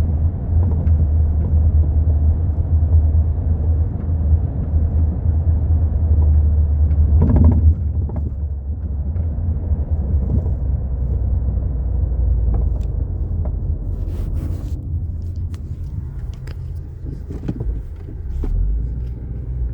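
Volkswagen Mk4 Golf on the move with a heavy, steady low rumble and, in the last few seconds, scattered sharp knocks; the car has a rear shock absorber that the owner says is bad.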